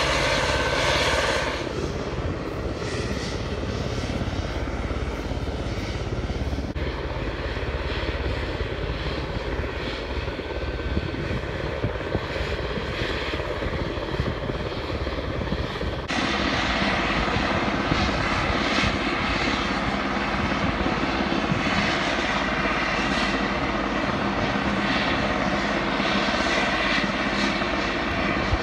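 Coastguard search-and-rescue helicopter running on the ground, its turbine engines and rotor making a steady whine and rush that changes tone abruptly a few times.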